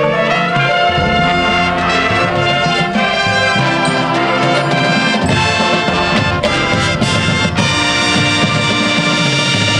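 High school marching band playing loudly: saxophones and brass in sustained chords over drums.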